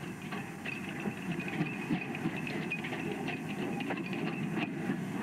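Steam locomotive hauling a train past at close range: a steady hiss of steam with the clatter and clicks of wheels on the rails.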